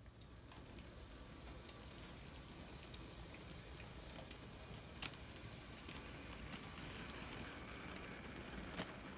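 Motorised LEGO train running on plastic track: a faint, steady rolling whir that grows louder as it comes closer, with a few sharp clicks as the wheels cross rail joints and the switch.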